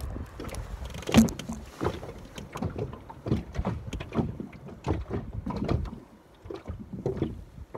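Irregular knocks and thumps on a small boat, the loudest about a second in, over a steady low rumble.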